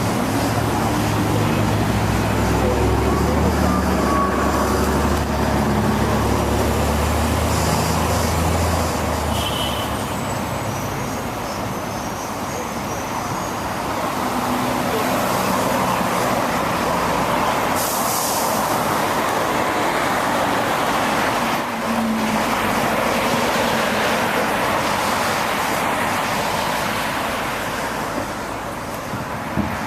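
Busy city street traffic, with a heavy vehicle's low engine rumble for the first nine seconds or so before it fades into the steady traffic noise.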